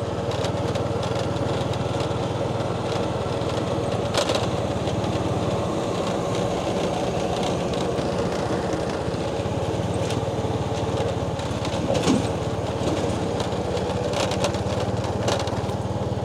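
Small motorbike engine running at a steady cruise, with a couple of brief knocks about four seconds and twelve seconds in.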